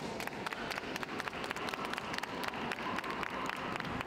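Audience applauding: a steady patter of many separate hand claps.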